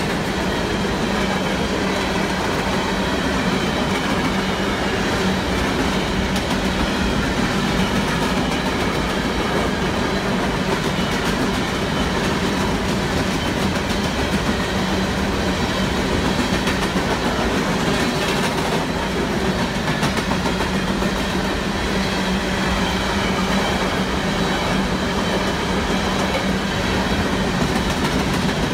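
Freight train of open-top hopper cars rolling past close by: a steady rumble and clatter of steel wheels on the rails that holds level throughout.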